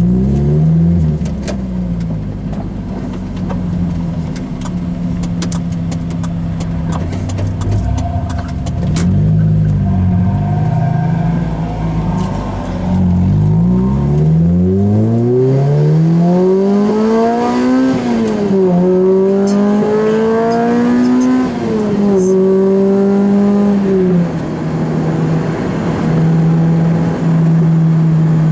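Lotus Elise 111R's 1.8-litre Toyota four-cylinder engine heard from inside the cabin. It pulls hard with the pitch climbing for several seconds, drops at each of two or three gear changes, then settles to a steady cruising note for the last few seconds.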